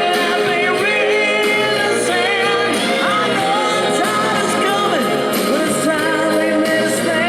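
Rock song with sung vocals playing from a vinyl record on a 1974 Philips GF-723 record player.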